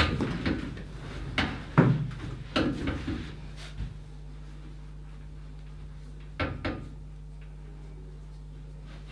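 A person rolling over from front to back on a padded treatment table: a few knocks and creaks of the table over the first three seconds or so. After that there is a steady low hum, broken by two quick soft knocks about six and a half seconds in.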